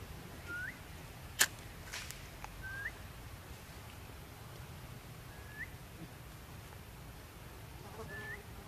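A bird's short whistled call, a held note that flicks upward at the end, repeated four times about every two and a half seconds. A single sharp click sounds about a second and a half in.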